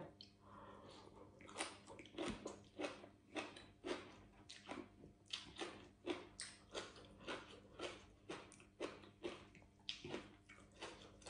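Faint, steady chewing of a mouthful of leaf-wrapped spicy cucumber salad, about two to three wet, crunchy chews a second.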